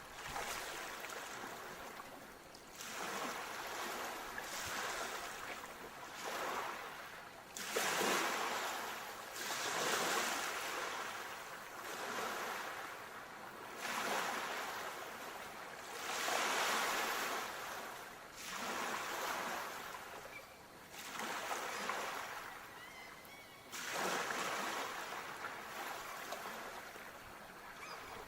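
Sea surf: waves washing in one after another, each swelling up and falling away, roughly every two to three seconds.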